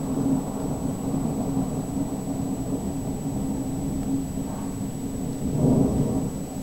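Rolling thunder: a long, low rumble that swells again about five and a half seconds in.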